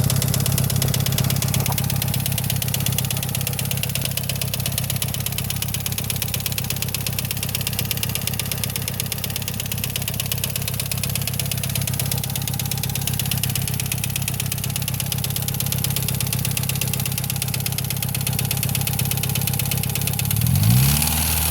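Mitsubishi Lancer Evolution IX's turbocharged 4G63 inline-four idling steadily with a loud, rapid ticking, which the owner takes for lifter tick. Near the end the engine is blipped once, its pitch rising and falling.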